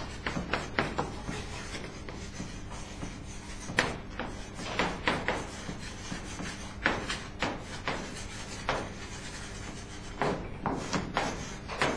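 Chalk writing on a blackboard: clusters of short scratching and tapping strokes, with brief pauses between groups.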